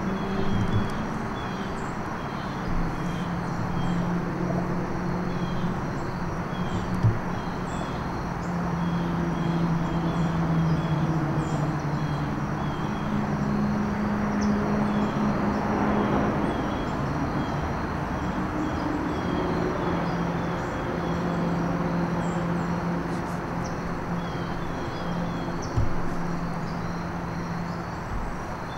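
Outdoor field ambience: a steady low drone from a distant engine, wavering in pitch, under small repeated high chirps from birds or insects, with a couple of short thumps.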